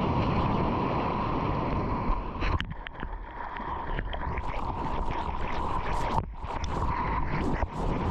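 Rushing, splashing water and wind buffeting the microphone as a surfer moves through the water, the sound dropping away sharply for a moment three times.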